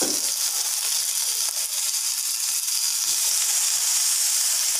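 Pieces of fried tuna with skin-on garlic and onion sizzling in hot oil in a stainless steel pan: a steady hiss throughout.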